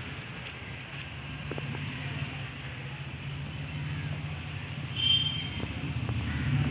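Steady low rumble of background motor-vehicle noise, with a brief high squeal about five seconds in.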